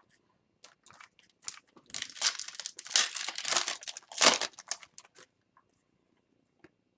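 Wrapper of an O-Pee-Chee Platinum hockey card pack being torn open and crinkled: a few small crinkles, then a dense run of crackling for about three seconds in the middle, then a few more small crinkles.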